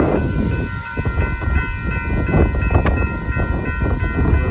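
Railroad grade-crossing warning bell ringing steadily as the crossing gates lower, over heavy wind buffeting on the microphone and the low rumble of an approaching freight train.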